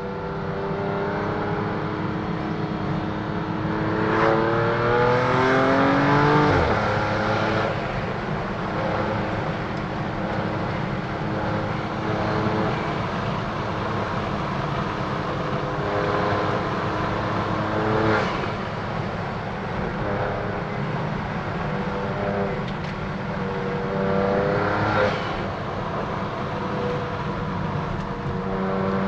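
2015 BMW F80 M3's twin-turbo inline-six, fitted with an M Performance exhaust and secondary cat delete, under way on the road. The engine note climbs in pitch a few seconds in and drops sharply, then runs fairly steady, with two more short climbs, about midway and in the last third.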